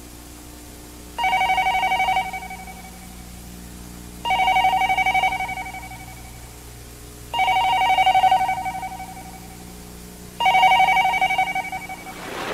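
Push-button desk telephone ringing with an electronic ring: four rings, each about a second long, coming about every three seconds.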